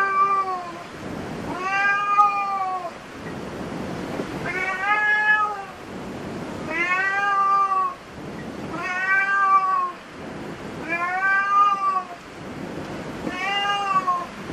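Domestic cat meowing over and over: about seven drawn-out meows, one roughly every two seconds, each rising and then falling in pitch.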